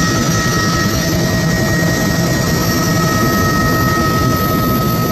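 Helicopter engine and rotor noise heard from inside the cabin: a loud, steady rumble with a steady high-pitched whine over it.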